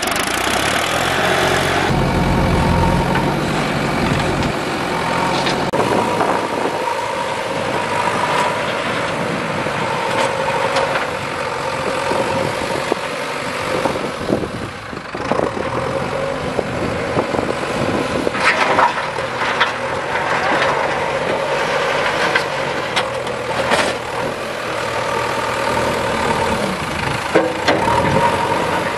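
Diesel engine of a New Holland 3230 farm tractor running as it pulls a trolley, then, about halfway through, the diesel engine of a JCB 3DX backhoe loader working as it pushes soil with its front bucket. Steady engine drone throughout.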